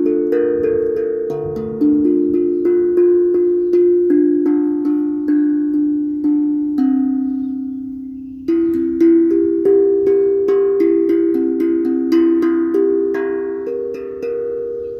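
An Orbaphone being played by hand: a slow melody of struck notes that each ring on and fade, overlapping one another, with one long note left to ring before the playing picks up again about eight seconds in.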